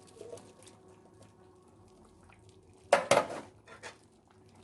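Cookware clatter: a short burst of metal clanking against a cooking pot about three seconds in, followed by a few lighter clinks.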